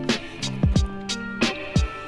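Background music with a steady beat: deep drum hits that drop in pitch, sharp percussion strokes and held chord notes.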